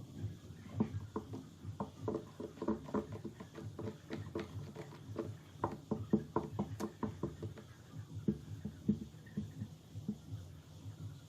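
Irregular light tapping and knocking, several short taps a second.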